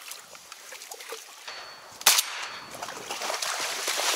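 A single shotgun shot about two seconds in, a sharp crack with a short tail, fired at a flying duck.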